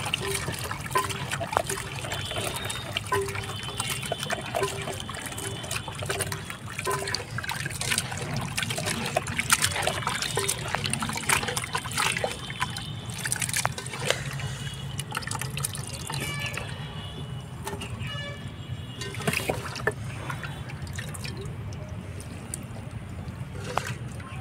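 Water trickling from a plastic bottle into a metal pot while a handful of live snails is scrubbed by hand in it, the shells clicking and clattering against each other and the pot.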